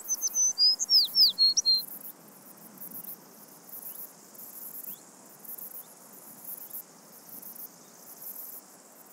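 A songbird sings a quick run of high, falling whistled notes in the first two seconds, over insects chirping in a high, regular pulse about once a second.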